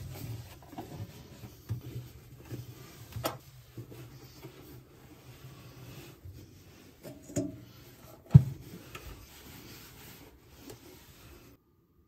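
Dry cloth rubbing and wiping the inside of a microwave oven's metal cavity, a continuous scratchy rub with a few light knocks as the hand meets the oven walls, the loudest knock about eight seconds in. It stops abruptly just before the end.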